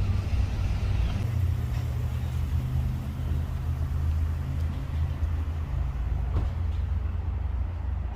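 A road vehicle running: a steady low engine and road rumble.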